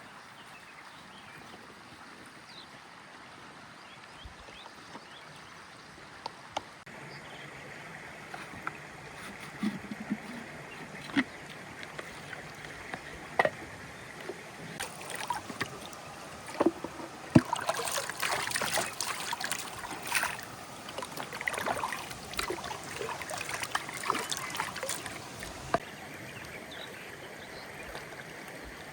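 Water trickling and splashing, with scattered knocks and clatter that grow busier in the middle stretch.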